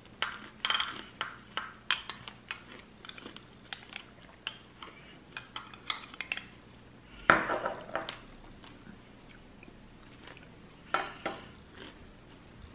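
Cutlery and dishes clinking: a quick run of sharp clinks, a louder clatter about seven seconds in, then a few more clinks near the end.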